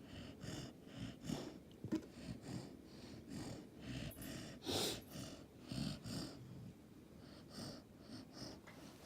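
Golden retriever puppy snoring in its sleep: a quick run of short snuffling breaths, about two a second, with one louder snort about five seconds in.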